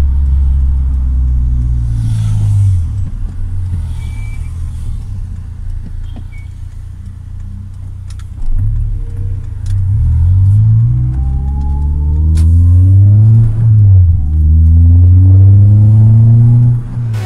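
Car engine running under way, then accelerating hard from about halfway through, its pitch climbing. The pitch drops once at a gear change near the end, then climbs again.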